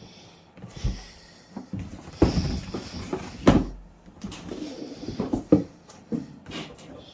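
Handling noise of a crossbow unboxing: packaging rustling and parts knocking as they are lifted and set down, with several thumps, the loudest about three and a half seconds in.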